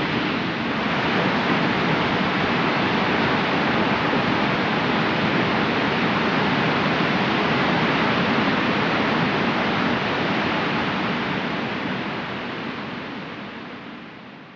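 Powerful waterfall rushing: a steady, dense roar of falling water that fades out over the last few seconds.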